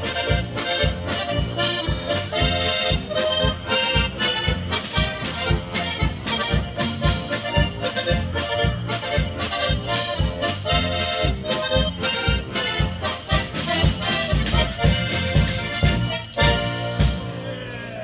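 Polka band playing: three button accordions over a drum kit and bass guitar, with a steady, regular beat. The tune finishes near the end on a held chord that dies away.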